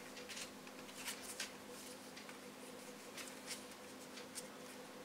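A sheet of paper being folded and creased by hand: faint, scattered crinkles and rustles.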